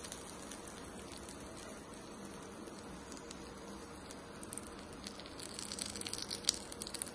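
Faint crackling sizzle of the hot tempering oil on the chutney in a steel bowl. About five and a half seconds in, a spoon stirs through the thick chutney with soft clicks and squelches, one sharper click near the end.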